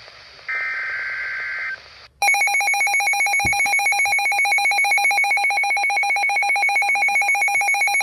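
Emergency Alert System broadcast: a SAME digital header data burst lasting about a second, then, about two seconds in, a loud, rapidly warbling attention tone that runs on steadily, the signal that an emergency alert (here a tornado warning) is about to be read.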